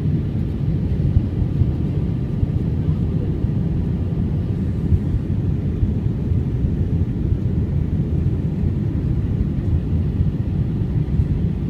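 Steady low rumble of an aeroplane in flight, engine and airflow noise heard from inside the passenger cabin.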